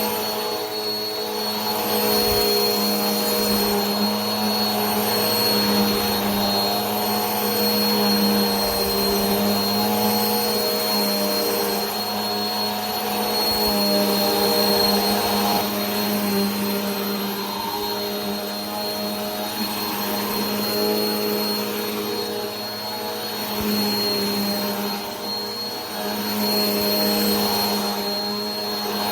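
Vacuum cleaner running continuously: a steady motor hum with a thin high whine over a bed of rushing air hiss, its tone wavering slightly.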